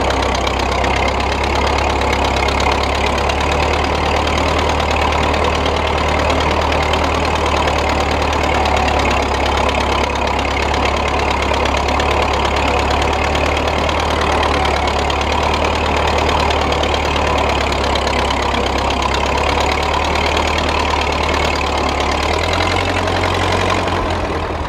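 1927 Model T Ford homemade tractor's four-cylinder flathead engine running steadily while the tractor pulls a plow through garden soil; the low engine note shifts about two seconds before the end.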